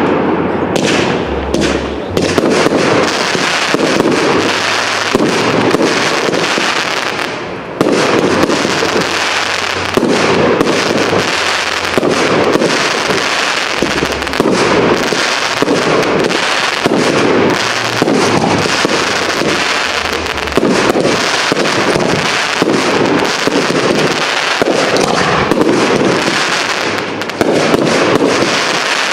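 Professional fireworks display: aerial shells bursting in a dense, near-unbroken run of bangs, several a second, with a brief lull just before the middle.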